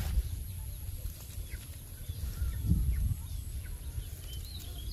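Low wind rumble on the microphone, swelling briefly a little before the middle, with a few faint bird chirps near the end.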